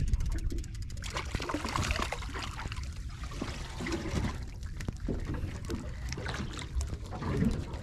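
Water splashing and dripping as a string of mackerel on a multi-hook rig is hauled out of the sea, over a steady low rumble of wind and boat noise.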